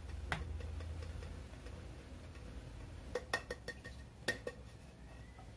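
A few light clicks of kitchen utensils against a cooking pan, one near the start and several more a little past the middle, over a low steady hum.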